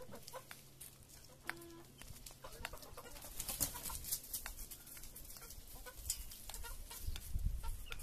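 Chickens clucking quietly as they feed, with a short cluck about a second and a half in and many short scattered taps.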